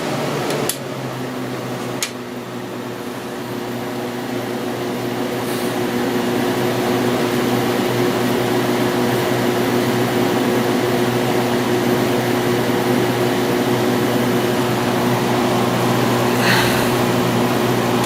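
Fedders 8,000 BTU window air conditioner running, with the steady hum of its Sanyo compressor under the rush of its fan, and a couple of clicks near the start. The sound grows louder over the first few seconds and then holds steady, in good running order.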